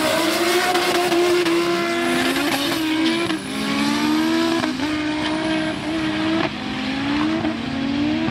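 Audi 80 quattro drag car accelerating flat out down the strip. The engine note climbs and drops back at each upshift, about five shifts in all, on a run the owner calls a 'baaaad clutch'.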